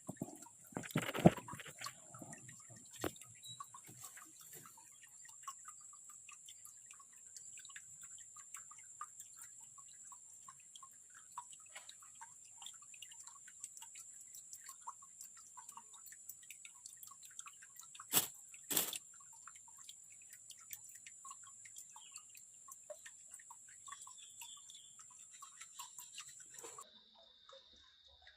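Small water drips and trickles ticking over a steady high-pitched hum. Two sharp knocks come about 18 seconds in, and the hum cuts off suddenly near the end.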